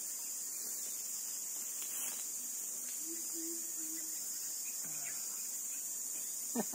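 Steady, high-pitched insect chorus of crickets or cicadas, droning without a break.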